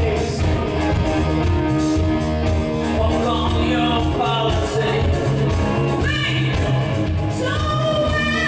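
Live rock band playing: drums, bass and electric guitars with a male singer's voice. Near the end, high notes slide upward twice.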